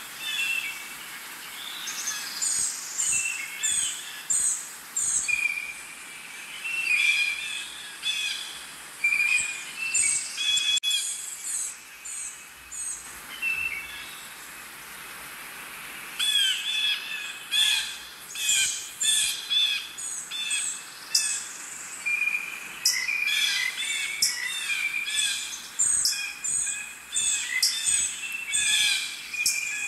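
Birds chirping and calling: many short, high notes repeated in quick runs, thinning out briefly about halfway through.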